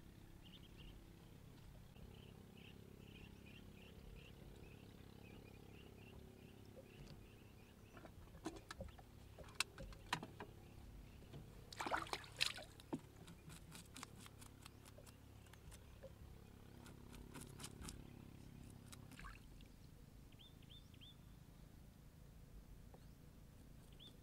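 A run of sharp knocks and clicks from handling a knife, wooden cutting board and frying pan on the floor of a wooden boat. It comes in the middle of the stretch, and the loudest knocks ring briefly. Faint bird chirps and a low steady background run underneath.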